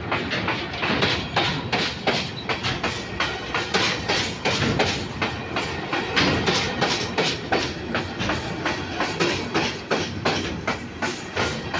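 Long freight train of coal hopper wagons rolling past, its wheels clacking over the rail joints in a rapid, regular clatter over a steady rumble.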